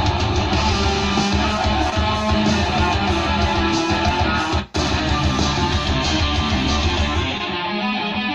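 Recorded music with guitar and heavy deep bass, played loud through a home speaker system. The music drops out for a moment about four and a half seconds in, and the deep bass falls away near the end.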